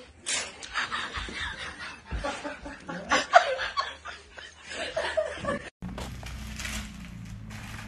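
People snickering and laughing in short bursts, loudest about three seconds in. It cuts off suddenly near six seconds, leaving a steady hiss with a low hum.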